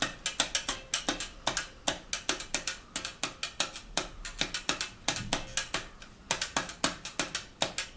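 Rhythmic knocking on a school desk played as a drum beat, quick sharp knocks at about four a second in a repeating pattern.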